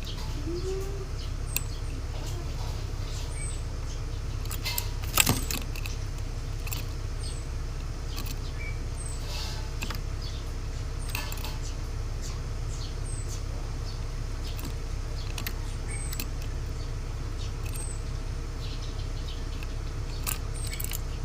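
Cucak ranting bird giving short, high, sharp chirps every second or two, with scattered sharp clicks and one louder knock about five seconds in, over a steady low hum.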